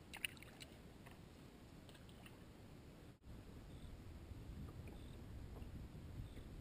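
Faint low wash of wind and small waves against a boat hull, with a few light clicks a fraction of a second in from a spinning reel. The sound cuts out for an instant about three seconds in.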